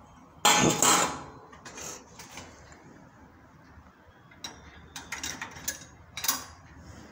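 Stainless steel surgical instruments and bowls clattering in a steel tray as they are handled. A loud metallic clatter with ringing comes about half a second in, followed by scattered clinks.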